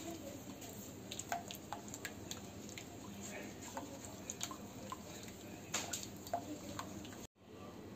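A wooden spatula stirring thin, wet yeast-and-milk batter in a stainless steel bowl: soft liquid slopping with scattered small clicks and taps of wood on the metal. The sound breaks off for a moment near the end.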